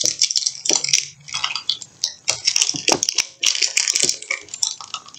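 Foil wrapper of a Pokémon trading card booster pack crinkling as fingers work it open at its crimped top edge, with many small irregular crackles and clicks.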